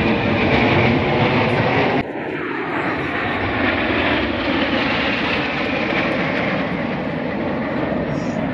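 Jet engine noise from a formation of Red Arrows BAE Hawk jets flying over, loud and steady. About two seconds in it cuts abruptly to a slightly quieter, thinner noise, with a short falling whine just after.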